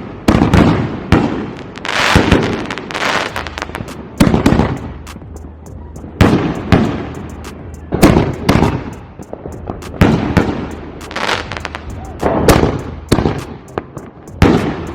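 Firework mortar shells going off one after another, about a dozen loud bangs at roughly one a second, each trailing off.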